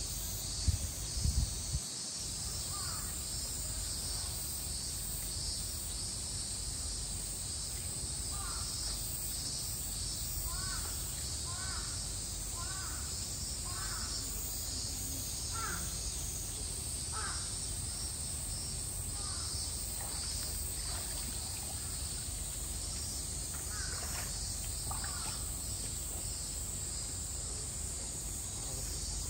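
Crows cawing in a series of short calls, a quick run through the middle and a few more near the end, over a steady high insect drone. A few low thumps in the first seconds.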